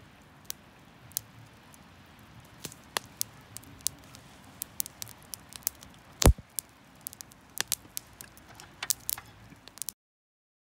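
Wood fire crackling in a small fire stand: frequent sharp, irregular pops and snaps, with one much louder pop about six seconds in. The sound cuts off just before the end.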